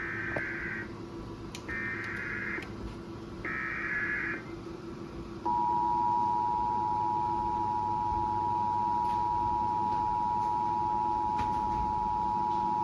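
Emergency Alert System activation relayed over FM radio: three short bursts of warbling SAME header data tones, then the loud, steady two-tone EAS attention signal. It heralds a severe thunderstorm warning.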